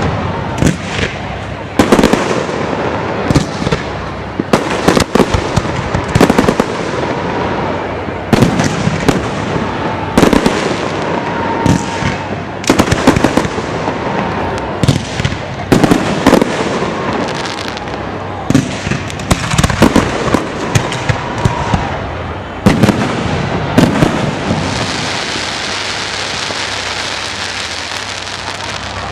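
Aerial fireworks shells bursting one after another, with sharp loud booms roughly one to three a second. A steady hiss takes over in the last few seconds.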